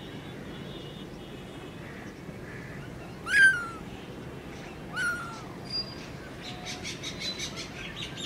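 Young kitten meowing twice: a loud, high meow that falls in pitch about three seconds in, and a softer one about two seconds later. From about two-thirds of the way through, birds chirp quickly in the background, about five chirps a second.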